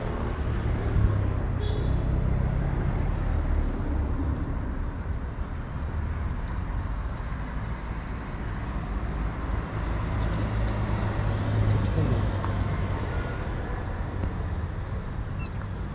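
Steady low rumble of motor vehicle engines and traffic noise, swelling twice and easing off.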